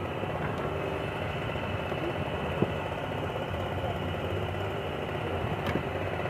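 A steady engine-like hum with faint voices, broken by two sharp clicks, about two and a half and five and a half seconds in.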